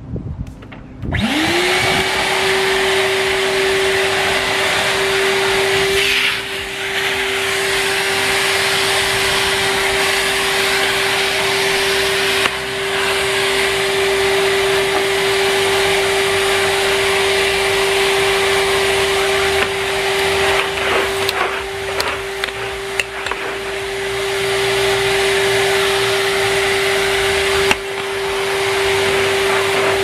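Numatic Henry Wash vacuum cleaner switched on about a second in: its motor whine rises quickly to speed, then runs steadily under a loud rush of air, which dips briefly several times.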